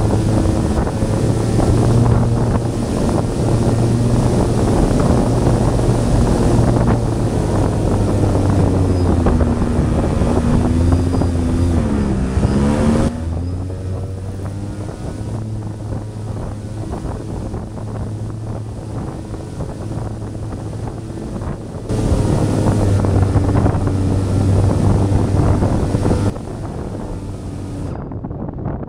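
Twin brushless motors with 10-inch propellers on an RC glider droning steadily in flight, with wind rushing over the microphone. The motor pitch dips and climbs again a little before halfway, then the sound turns quieter for several seconds and swells back up before falling off near the end.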